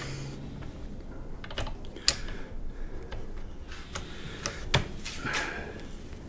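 Scattered light metallic clicks and taps of steel parts being handled and fitted by hand at the rear of a Browning 1919 machine gun's receiver, as its trigger actuator is put on.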